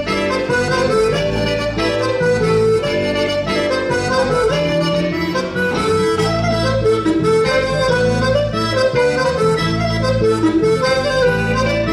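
Traditional Breton dance tune played on reed instruments: a quick melody of short notes over long held bass notes, with a steady dance pulse.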